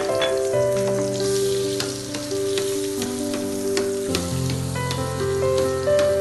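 Aromatics sautéing in hot oil in a pan, a steady sizzle with many small crackles and pops. Background music with changing sustained notes plays along.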